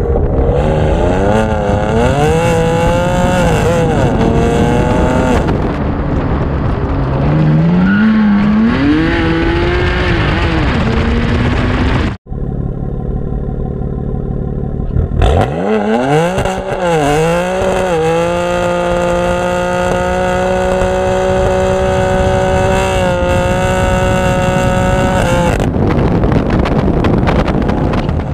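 Straight-piped BMW M3 F80's twin-turbo inline-six driving on the road, its revs climbing and falling repeatedly, then holding steady for several seconds in the second half. There is a brief dropout about twelve seconds in.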